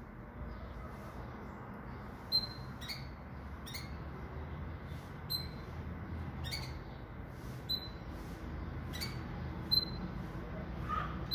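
Caged pintagol, a hybrid of a Venezuelan red siskin and a female Belgian canary, giving short, sharp single chirps, about eight at irregular intervals of roughly a second, over a steady low background rumble.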